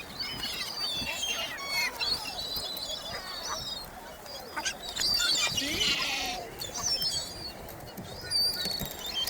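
A flock of birds chirping and calling over one another, with a louder, harsher burst about six seconds in.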